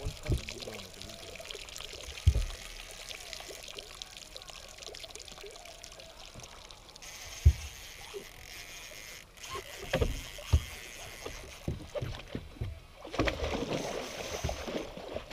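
A hooked musky being fought and landed beside a boat: water sloshing with a few sharp low knocks on the boat, then a burst of splashing near the end as the fish thrashes in the landing net.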